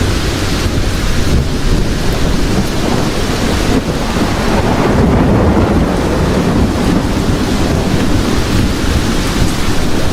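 Thunderstorm: steady rain with a continuous low rumble of thunder, with no single sharp crack.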